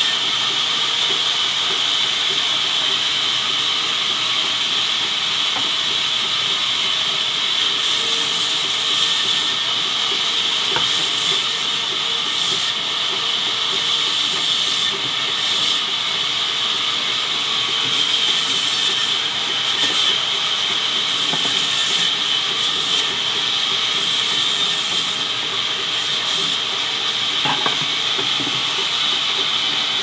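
A sawmill band saw runs steadily with a high-pitched whine while it cuts banyan wood planks. A harsher hiss comes and goes again and again as the blade bites through the wood.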